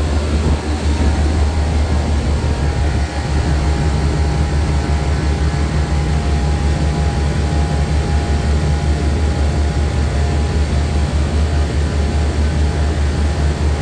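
Refrigeration vacuum pump running steadily, a loud low hum with a faint whine above it, pulling a vacuum on the rebuilt compressor system.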